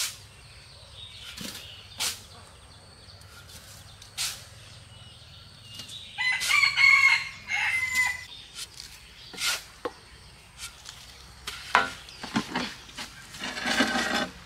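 A rooster crows about six seconds in, one long pitched call of about two seconds, and calls again near the end. Between the calls come short scrapes and thuds of a steel shovel digging into sand and tipping it into a metal wheelbarrow.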